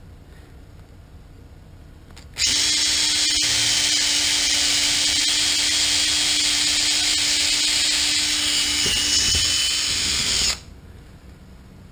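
Makita cordless drill running steadily at one speed for about eight seconds, drilling a small screw hole with an eighth-inch bit, then stopping abruptly. It starts suddenly and carries a steady low motor whine under its high-pitched cutting noise.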